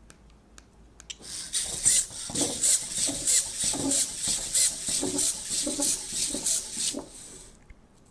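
Bittle robot dog walking on a wooden tabletop: its servo motors whirr and its plastic feet tap in a quick, even rhythm. The walking starts about a second in and dies away shortly before the end.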